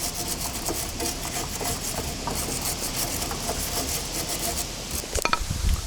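Scrubbing the dirt off the nuts and bolts of a car's rear strut and hub by hand, in quick rhythmic back-and-forth strokes, with a few knocks near the end.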